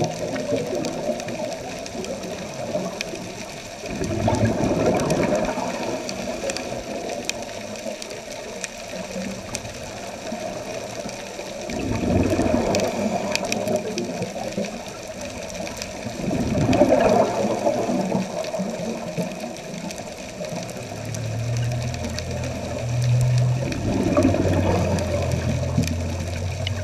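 Scuba divers' exhaled bubbles heard underwater: four rushing bursts of bubbling several seconds apart, one per breath, over a steady watery hiss. A low steady hum comes in about two-thirds of the way through.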